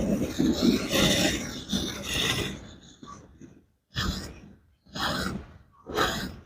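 A buffalo being milked: short hissing squirts of milk in uneven strokes, broken a few times by sudden brief silences.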